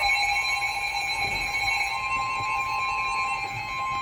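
Emergency weather alert tone from a weather radio broadcast: a loud, steady, unbroken electronic tone announcing a Special Marine Warning.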